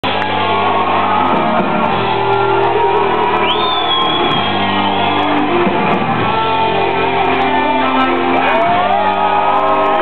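Metal band playing live in a hall, heavy distorted guitar chords over drums, with shouting and singing voices mixed in. Recorded from the crowd on a phone: loud and dull, with no treble.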